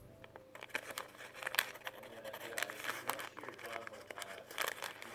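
Instant-oatmeal packet crinkling and tearing as fingers pull at it to open it, in scattered small rustles and ticks.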